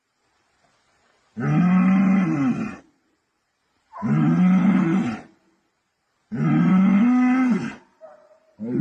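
Bull bellowing: three long, deep calls with pauses between, and a fourth beginning right at the end.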